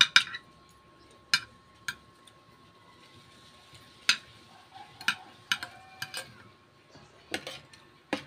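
Metal spoon and fork clinking and scraping on a ceramic plate while pulling apart fish, in about ten sharp, irregular clinks.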